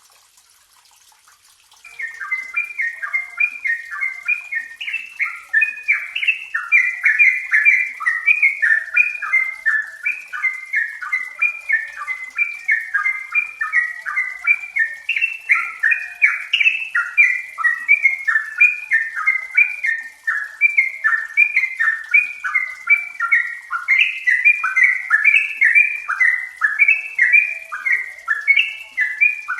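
Yellow-vented bulbul singing, starting about two seconds in: a fast, unbroken run of short, bubbly, pitch-sliding notes, about three a second.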